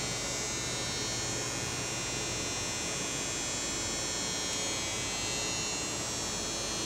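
Steady electrical hum with a high buzz from the powered-up Ooya radial arm drill press, with no cutting or other sudden sounds.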